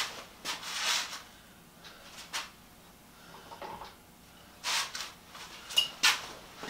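Irregular knocks and clinks of small metal tools and parts being picked up and handled. A few sharp ones come around the start and near one second, then it goes quiet, and a cluster follows near the end.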